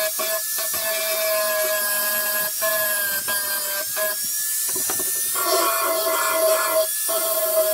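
Handheld angle grinder sharpening the steel edge of a lawn tractor mower blade: a steady motor whine over a gritty grinding hiss, cutting out briefly several times as the disc leaves the edge.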